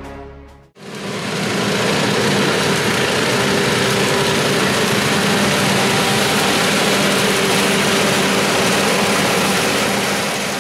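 Farm machinery running steadily at work: a John Deere tractor and a forage harvester chopping green oats into a trailer, an engine drone under a steady rushing noise. It starts abruptly about a second in.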